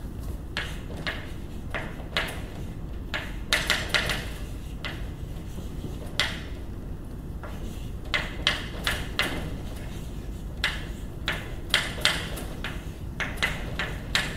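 Chalk writing on a blackboard: an irregular run of short taps and scratches as letters and symbols are chalked, some strokes coming in quick bursts of several a second.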